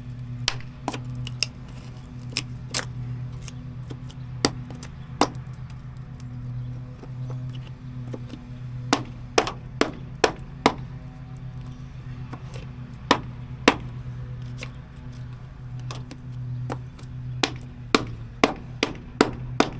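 Hammer blows, sharp single strikes at an uneven pace, with quick runs of several hits near the middle and again near the end.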